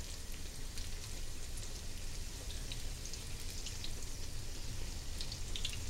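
Spinach fritters frying in hot oil in a frying pan: a steady sizzle with scattered small crackles and pops.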